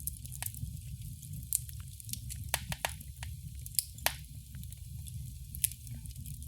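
Wood fire crackling in a fireplace: irregular sharp pops and snaps, a few louder ones around the middle, over a steady low rumble of the burning.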